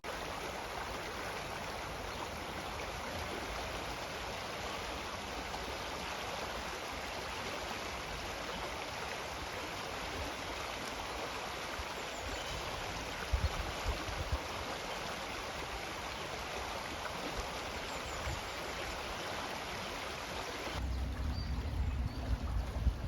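Stream flowing: a steady rush of running water, with a few low thumps about thirteen seconds in. Near the end the rush of water drops away and a low rumble takes over.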